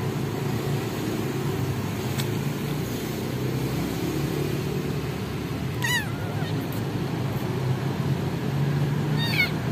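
Kitten mewing twice: short, high-pitched, wavering mews about six seconds in and again near the end, over a steady low background rumble.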